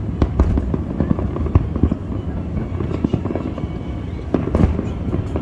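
Aerial fireworks display: a dense run of overlapping bangs and booms, several a second, over a continuous low rumble.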